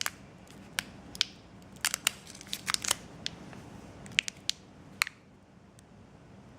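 Scattered sharp clicks and taps of small plastic items, a USB cable and phone accessories, being handled up close, about a dozen over the first five seconds before they stop.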